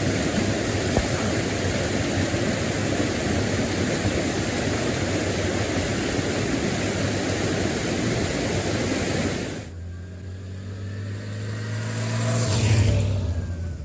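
Wind rush and engine noise from a motorcycle on the move, which cuts off abruptly about ten seconds in. A vehicle engine follows, swelling as it passes by near the end and then fading.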